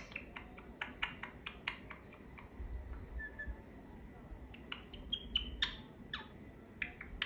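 Pet parrot making a run of sharp clicks, several a second, in two spells with a quieter pause between, and a couple of short soft chirps in the pause and near the second spell.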